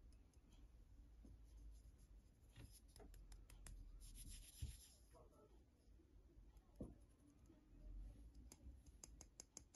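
Faint fingernail clicks and scratching on the shell of a hand-painted egg, in short clusters, with a soft rubbing hiss and one light thump near the middle.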